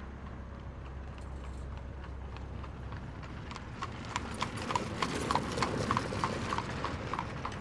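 A horse's hooves clip-clopping at a walk, about three steps a second, growing louder to a peak about five seconds in and then easing off as it passes.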